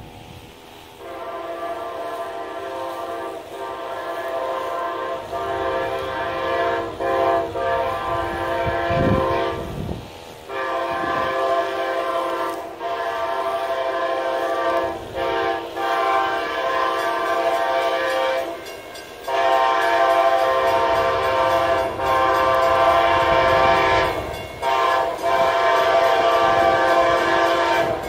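Amtrak locomotive 822's multi-chime air horn sounded over and over in a long series of blasts, mostly long with a few short ones and brief breaks between, growing louder as the train approaches.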